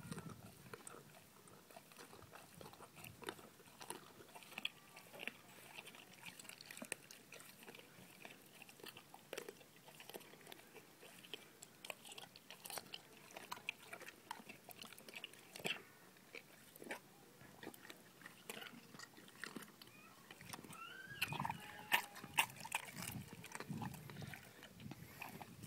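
A Greater Swiss Mountain Dog chewing raw fish: irregular wet biting and smacking clicks, with a few louder crunches near the end.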